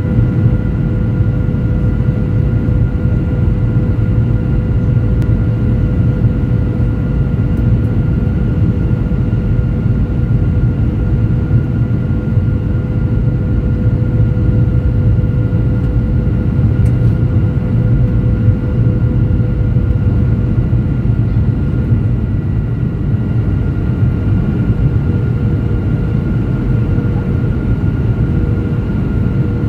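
Steady in-flight cabin noise of a Boeing 737-700 heard from a window seat over the wing: a loud low rumble of airflow and the CFM56-7B turbofan engines, with a few steady whining tones on top.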